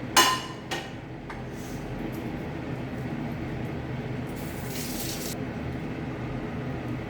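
A metal utensil clinks sharply against a metal pot or container with a short ringing tone, followed by two lighter clinks, likely while salt is being added to the pan of onions. About four and a half seconds in comes a brief hiss, over a steady low hum.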